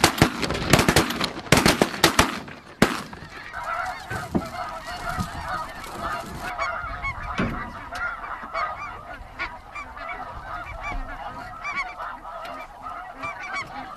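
A rapid volley of shotgun shots in the first three seconds as a flock of geese comes in, then the geese keep honking in many overlapping calls.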